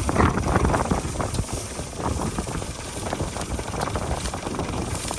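Al-Ghazi 65 hp tractor engine running steadily under load, with a rattly, uneven mechanical clatter.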